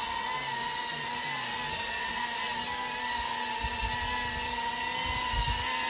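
DJI Avata 2 FPV drone's guarded propellers running with a steady, high whine whose pitch wavers slightly, over a hiss of rushing air. Two brief low rumbles come through about halfway through and again near the end.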